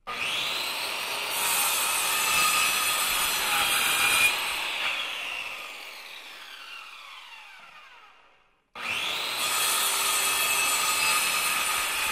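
Table saw starting up and running, with the blade cutting wood for about three seconds. It is then switched off and winds down with a falling whine. About three quarters of the way through it starts up again and runs at speed.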